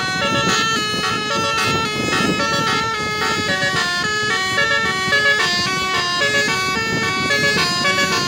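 Tour bus 'telolet basuri' multi-tone musical air horn playing a tune: several tones sound together and step to new pitches a few times a second, over low traffic rumble.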